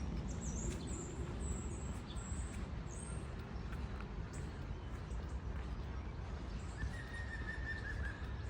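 Small birds giving short, high, thin chirps with quick pitch glides over the first three seconds, over a steady low outdoor rumble. A single held high note sounds for about a second and a half near the end.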